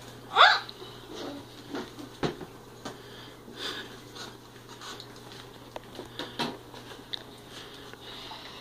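Scattered small knocks, handling noises and mouth and breathing sounds from people eating spoonfuls of peanut butter, with a short falling squeak about half a second in as the loudest sound.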